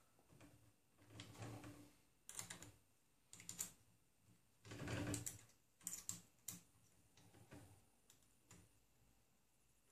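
Hands handling and fitting small plastic parts on a Prusa i3 3D printer's X carriage: a series of faint, irregular clicks and rustles, the loudest about halfway through.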